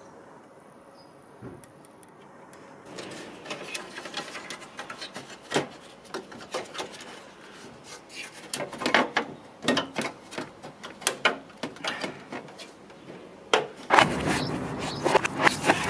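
Hard plastic air-intake and air-box parts in a car engine bay being handled by hand: irregular clicks, knocks and rubbing, starting about three seconds in and growing busier toward the end.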